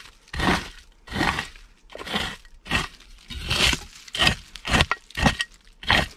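Dry forest-floor litter of pine needles, cones and dead leaves being scraped and swept aside by hand with a flat object. There are about nine quick scraping strokes at an even pace.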